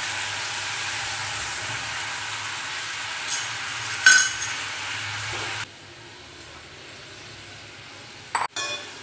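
Spice masala sizzling in oil in a pan while being stirred, with a spatula clinking against the pan twice about three and four seconds in. A little past halfway the sizzle drops abruptly to a quieter hiss, and a sharp clack comes near the end.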